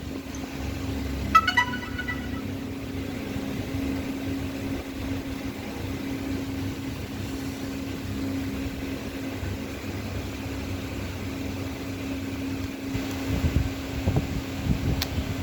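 Steady whirring hum of a fan or small motor, with one constant low tone. A brief electronic chime of a few short high notes comes about a second and a half in, and a few light handling knocks come near the end.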